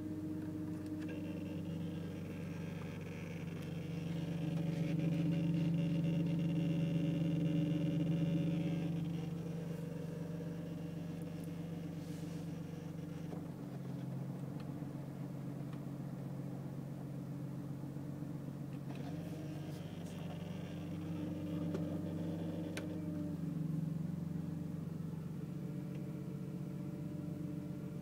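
Electrical buzzing from inside the dashboard of a BMW E46 M3, the buzz that sets in when the parking lights are switched on. It is a steady hum, with a higher, louder buzz that comes in for several seconds twice.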